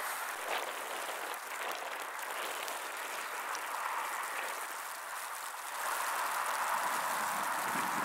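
Steady hiss of an outdoor snowstorm, wind-driven snow mixed with distant street traffic, growing a little louder about six seconds in.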